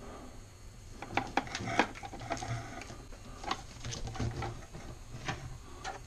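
Scattered knocks and clatter as a plastic vacuum-cleaner blower housing and its hose are handled and shifted on a workbench, about half a dozen separate clunks.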